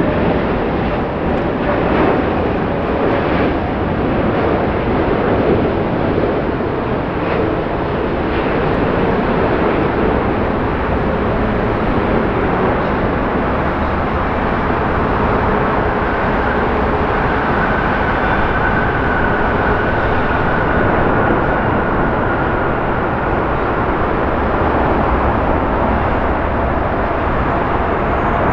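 Airbus A380-861 jet engines (four Engine Alliance GP7200 turbofans) making a steady, loud rumble and rush as the airliner comes in on final approach, touches down and rolls out along the runway.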